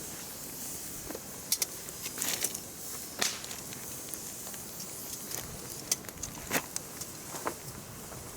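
Campfire of firewood burning, crackling: sharp pops at irregular intervals over a low, steady hiss, with a quick cluster of pops between about one and a half and two and a half seconds in, and single pops after that.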